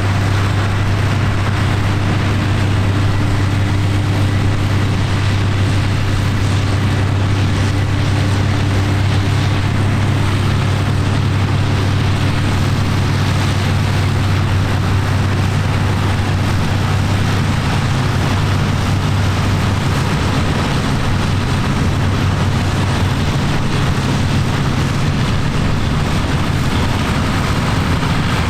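An engine running steadily at a constant speed, with a deep, even hum and no revving.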